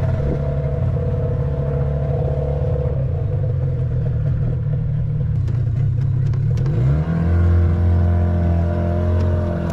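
Boat engine running steadily; about seven seconds in it revs up, holds the higher pitch for a couple of seconds, then eases back near the end.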